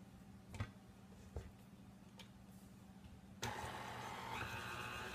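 A few soft knocks, then about three and a half seconds in the motor of a KitchenAid tilt-head stand mixer switches on with a steady whirring whine, stepping up in pitch about a second later as the speed is turned up.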